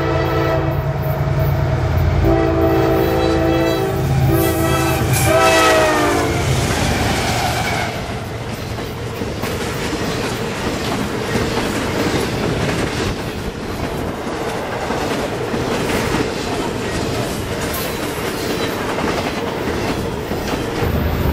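CSX diesel freight locomotive's air horn sounding several tones at once: the tail of one long blast, then a long, a short and a final long blast whose pitch drops as the locomotive passes. After it, the intermodal train's flatcars loaded with highway trailers roll past in a steady rumble and clatter of wheels on rail.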